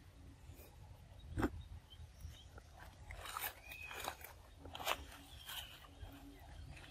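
Irregular crackling snaps and rustles of dry leaves and twigs, the loudest about one and a half seconds in and a cluster of them in the middle, with a bird chirping faintly once.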